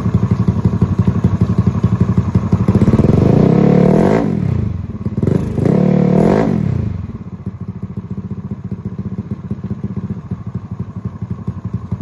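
Bored-up Yamaha X-Ride scooter's single-cylinder four-stroke engine running through a TK Moto tri-oval aftermarket silencer on a stationary sound check. It is blipped twice, the pitch rising and falling each time, around three and six seconds in, then drops back to a steady, quieter idle.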